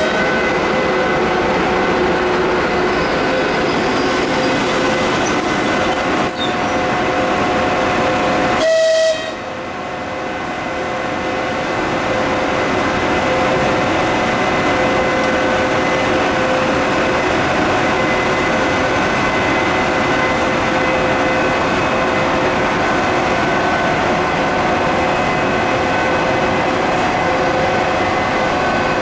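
ChS4T electric locomotive running slowly, its cooling fans and electrical equipment giving a loud, steady hum of several whining tones over a noisy rush. The sound breaks off abruptly about nine seconds in and picks up again, closer.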